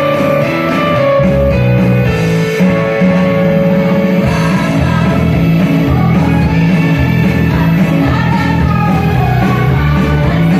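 A women's group singing together over loud amplified backing music with a steady, repeating bass line.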